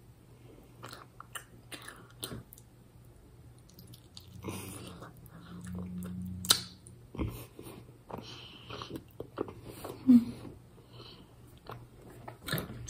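Close-up wet chewing of a soft, stretchy orange sweet, with scattered mouth clicks and lip smacks and a short low hum about halfway through.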